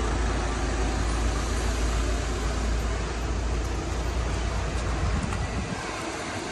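Mitsubishi Pajero Sport towing a caravan driving slowly past, engine and tyres making a low rumble that fades about five and a half seconds in as it moves away, over general street traffic.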